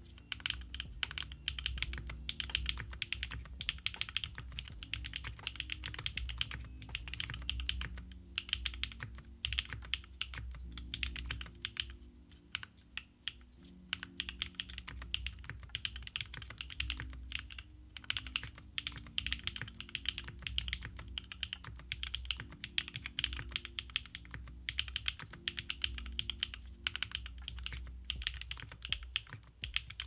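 Fast, continuous touch-typing on a Geonworks Frog TKL mechanical keyboard with Zaku linear switches (lubed with 3204 and filmed), GMK keycaps and poron plate foam. The keystrokes run in a dense stream and ease off briefly about twelve seconds in.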